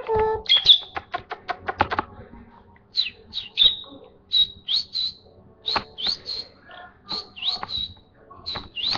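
Pet lovebird chirping: a quick run of sharp clicking chirps at first, then a string of short, high chirps that sweep upward, about two a second.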